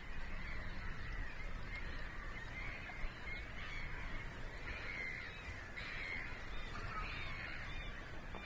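Wetland birds calling, many short calls overlapping in a dense chorus, over a steady low rumble. A brief click stands out about three seconds in.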